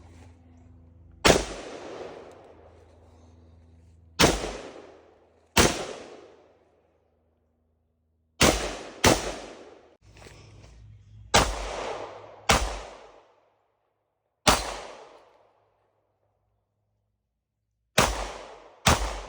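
AR-15 rifle firing 5.56 rounds in single shots, about ten at irregular intervals of one to three seconds. Each sharp report trails off in an echo.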